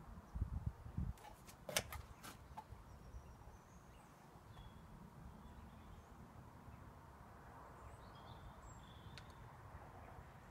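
Quiet farmyard ambience. A few low thumps and sharp knocks come in the first couple of seconds, then faint birdsong over a low outdoor rumble.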